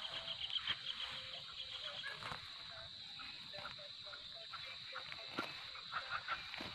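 Faint outdoor ambience with animal calls: a steady high drone, and a quick run of chirps in the first couple of seconds, with a few more short chirps near the end. Scattered light taps and rustles accompany the calls.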